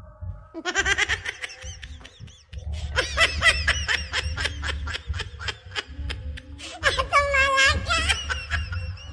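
High-pitched, cartoonish laughter sound effect: quick runs of giggles that start about half a second in, come back longer from about three seconds, and end in a warbling held laugh, over background music.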